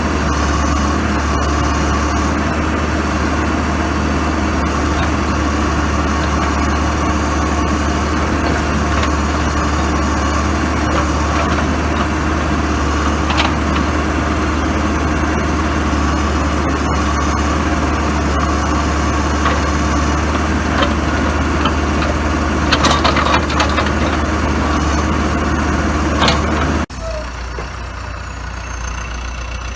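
Diesel engine of a 2008 John Deere 310SJ backhoe running steadily with a deep hum, with a few short knocks and clatters near the end. The sound drops off suddenly to a quieter run shortly before the end.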